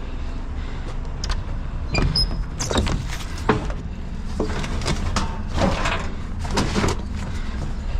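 Irregular metal clanks, knocks and scrapes as a bulky barbecue is handled and shifted onto a truck, over a steady low rumble.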